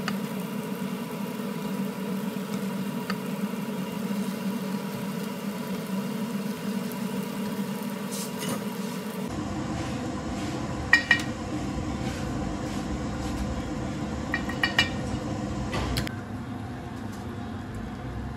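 A pan of tomato sauce simmering and frying steadily, then, after a cut, a wooden spatula clinking sharply against a ceramic bowl a few times as tomato paste is scraped into it. Near the end, water pours into the bowl.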